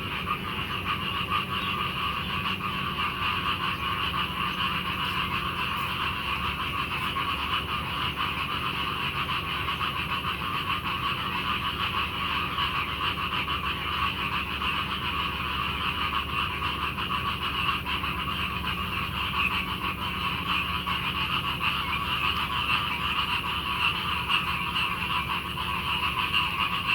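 A dense, steady chorus of frogs calling, many overlapping croaks at once, the typical night chorus of the rainy season.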